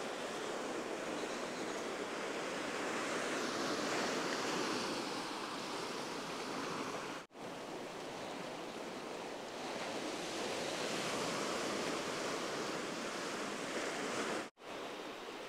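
Ocean surf breaking on a rocky shore: a steady wash of breaking waves that swells and eases slowly, broken off twice for an instant.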